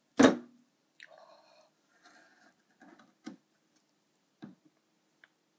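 A single sharp knock with a short ring near the start, then a few faint taps and clinks: a kitchen knife and utensils handled on a cutting board over a metal sink.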